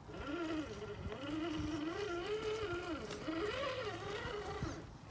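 RC rock crawler's electric motor and geartrain whining, the pitch rising and falling as the throttle is worked while it climbs.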